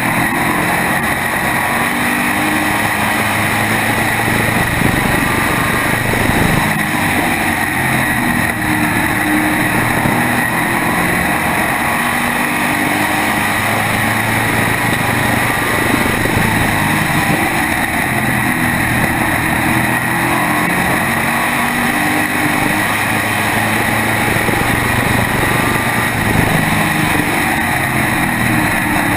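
SK modified race car's V8 engine running at racing speed, picked up by a camera mounted on the car; the engine note rises and falls in pitch over and over as the car powers down the straights and lifts for the turns.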